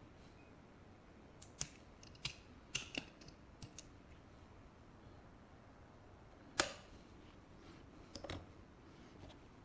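Sharp mechanical clicks from an optical-fibre cleaver and a fusion splicer's fibre clamps being worked by hand: a cluster of clicks in the first few seconds, one louder single click a little past the middle, and a few quick clicks near the end.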